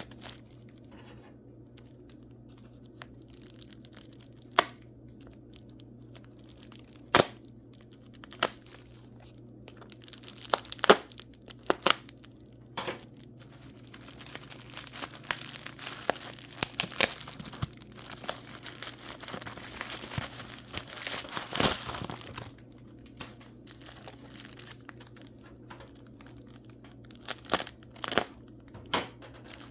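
Wrapping around a large mineral specimen being torn open and crumpled by hand: scattered sharp rustles and clicks, thickening into a stretch of continuous crinkling about halfway through, then sparse again near the end. A low steady hum lies underneath.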